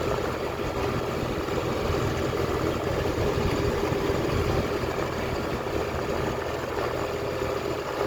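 Tractor engine running steadily at about 1650 rpm under load, driving a round hay baler through its PTO as the baler picks up hay.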